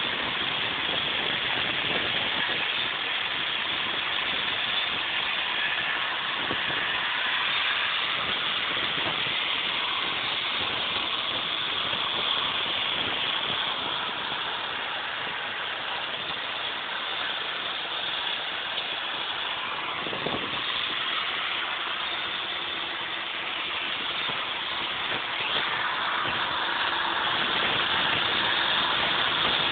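Power grinder cutting out mortar joints in brickwork for tuckpointing, running continuously with a grinding hiss, easing a little in the middle and louder again near the end.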